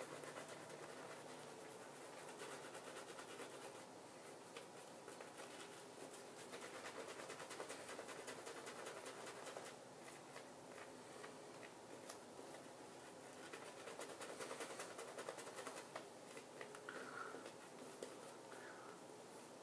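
Shaving brush working soap lather over a bearded face: a faint, continuous scratching swish of the bristles against skin and whiskers.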